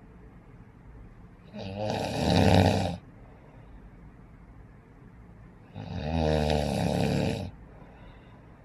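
Snoring: two long snores about four seconds apart, the first starting about one and a half seconds in, the second about six seconds in, each lasting a second and a half or so.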